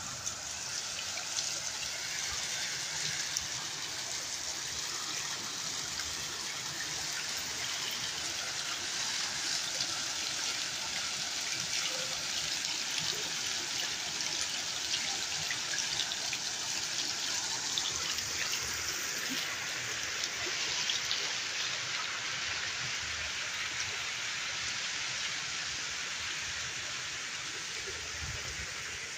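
Small fountain jets splashing into a shallow pool: a steady hiss of falling water, easing slightly near the end.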